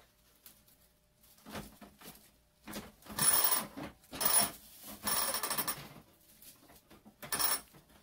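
Stiff broomcorn straws rustling and swishing as they are handled and pressed around a broom handle on a winder, in about five separate bursts, the loudest a little past the middle.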